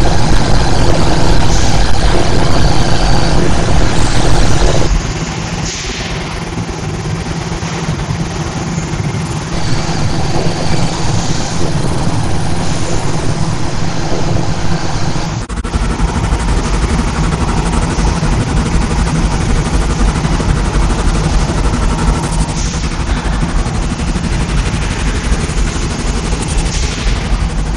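Dense, layered industrial machine noise with a heavy low rumble, like automated factory machinery running. It drops suddenly about five seconds in, swells again around ten seconds, and breaks off for an instant near fifteen seconds before running on.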